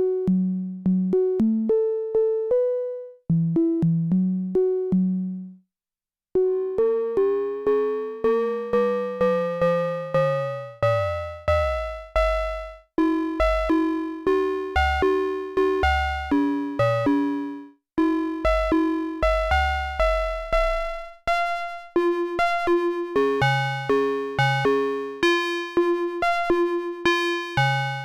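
Cre8audio Capt'n Big-O analog Eurorack oscillator playing a sequence of short, quickly decaying synth notes, several a second. In the middle the tone's overtones sweep up and down, a shifting, metallic timbre as its modulation is changed, before it settles back into the plucked pattern.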